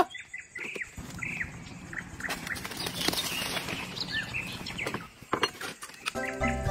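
Splashing of a small dog running through shallow water in a flooded rice paddy, with repeated short high chirps over it.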